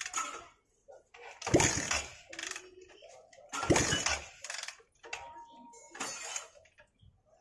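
Single-cylinder engine of a Honda Shine SP 125 being kicked over three times, about two seconds apart, each kick a short burst of cranking through the bare exhaust port with the silencer removed. The engine does not catch: a hard-starting engine, which the mechanic suspects has petrol in its crankcase oil.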